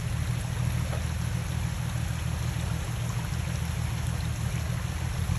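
Off-road vehicle's engine running low and steady, with a noisy hiss over it.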